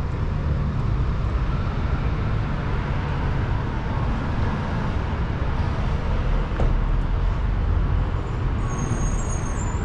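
Street ambience: a steady low rumble of city traffic, with faint high whistling tones near the end.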